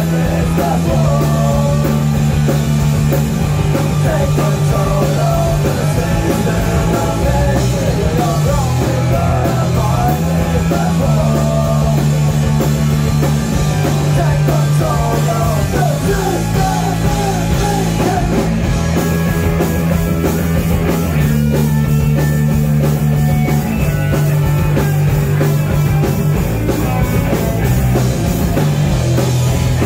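Live rock band playing loud, amplified: electric guitar, electric bass and drum kit, with a man singing into the microphone through the first two-thirds before the instruments carry on alone.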